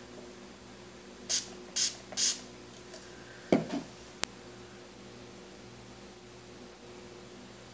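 A small pump spray bottle misting three times in quick succession, each a short hiss. A thump follows, then a brief sharp click.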